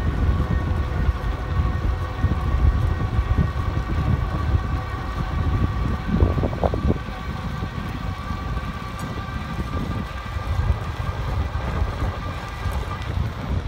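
Riding noise from an electric bike at about 21 mph under full pedal assist. Wind buffets the microphone and the tyres rumble on pavement, which is the loudest part, while the hub motor gives a steady whine underneath.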